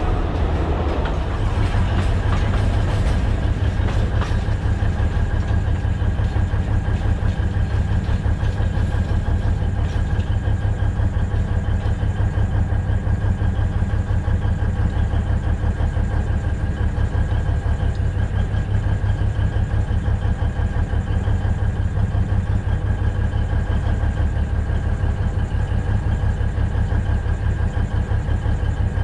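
Diesel locomotive engine running steadily: a deep hum with a fast pulsing beat and a thin steady whine above it.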